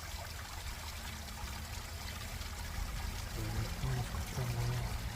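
Water running and trickling steadily in a stream. In the last two seconds a few short low hums sound over it, three times.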